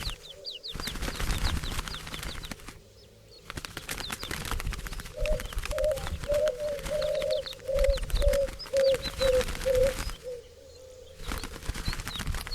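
Bird sounds with wings flapping: a dove gives a run of about eight short, low cooing notes from about five to ten seconds in. Small birds chirp in quick high notes throughout, with breaks about three seconds in and just after ten seconds.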